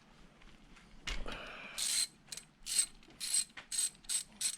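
A hand ratchet wrench worked back and forth, a short burst of clicking on each back-stroke, about two to three strokes a second from about two seconds in.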